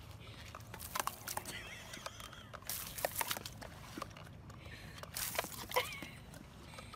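A dog whining in short, high, wavering calls, with scattered clicks and rustles between them.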